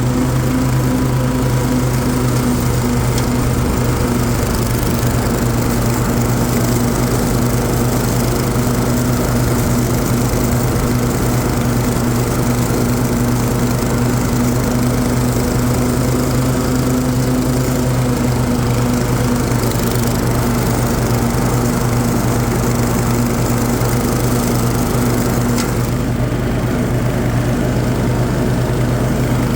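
Cub Cadet RZT S zero-turn riding mower running steadily under way: its 24-horsepower Kohler engine hums at a constant speed, with the 50-inch deck's blades engaged and cutting grass.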